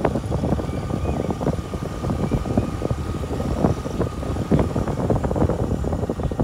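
A vehicle driving over a rough off-road track: a steady low rumble with many short knocks and rattles from the bumps, and a faint steady whine.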